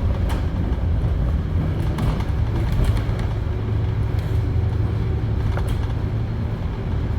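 Volvo B7TL double-decker bus's six-cylinder turbodiesel engine running, a steady low drone, with a few light rattles from the bus body.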